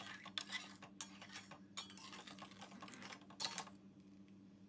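A spoon stirring a thick milk-and-sweet-potato mixture in a heavy kadai: faint, irregular scrapes and light clinks of the spoon against the pan, with a last cluster about three and a half seconds in.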